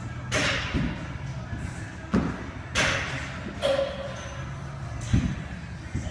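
A person doing burpees on a gym floor: several dull thuds as hands and feet drop to the floor and land again.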